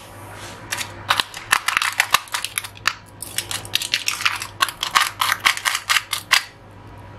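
Knife cutting through the crisp skin of an oven-grilled chicken thigh: a rapid, irregular run of sharp crunches. It starts about a second in and stops shortly before the end.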